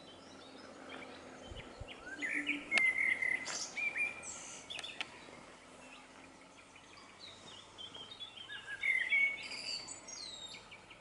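Songbirds singing in two spells of quick chirps and warbling phrases, about two seconds in and again from about seven and a half seconds, over a faint steady background hiss.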